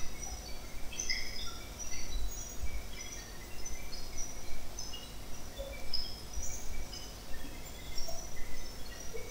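Small birds chirping in the background, many short high chirps at varying pitches scattered all through. Underneath are an irregular low rumble and a faint steady hum.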